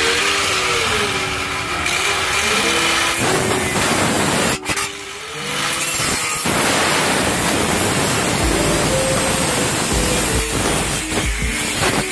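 Angle grinder cutting into a steel exhaust pipe, a harsh grinding that starts about three seconds in and breaks off briefly before carrying on, over background music.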